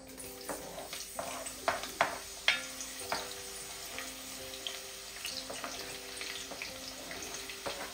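Sliced onion and ginger sizzling in hot oil as they are scraped off a cutting board into an enamelled cast-iron pot. A wooden spoon taps and scrapes against the board and pot several times, mostly in the first three seconds.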